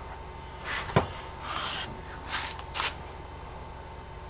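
Test leads and clips being handled and connected to a battery on a wooden workbench: a single knock about a second in, then a few short rubbing scrapes, over a faint steady hum.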